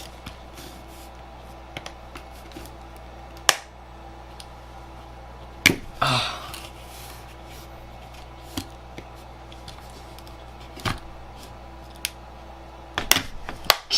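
Screwdrivers prying at a laptop battery's plastic casing and scraping its circuit board: scattered sharp clicks and snaps, with a short scrape about six seconds in. A steady low hum runs underneath.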